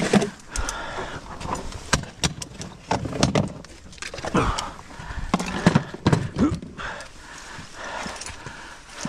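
Irregular knocks and sharp metallic clicks as a rope and its metal clip are handled and pulled.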